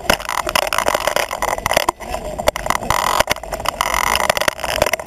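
Wind buffeting the microphone of a handlebar-mounted camera on a moving road bike, with frequent sharp rattles and knocks as the bike and mount are shaken by the road.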